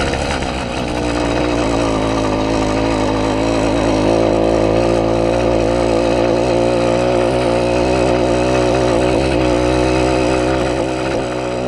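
Motorized bicycle's small engine running strong at steady revs. The revs dip briefly about half a second in, climb back over the next few seconds, and then hold.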